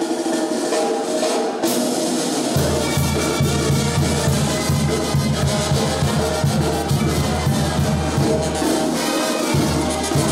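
Mexican banda playing live: brass and tambora drum, with a deep tuba bass line coming in about two and a half seconds in and breaking off briefly near the end.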